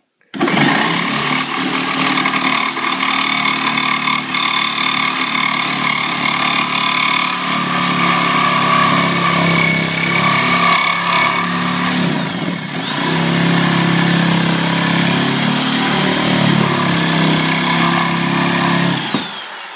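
Reciprocating saw (Sawzall) running steadily as it cuts through drywall. About twelve seconds in its pitch drops and it nearly stops, then it speeds back up and runs on. It stops shortly before the end.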